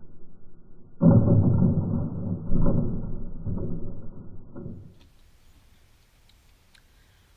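Slowed-down sound of a plastic bucket being knocked over by fruit fired from a PVC air cannon: a sudden heavy crash about a second in, then several more thuds as it tumbles and lands, fading out. It cuts to near-quiet with faint clicks about five seconds in.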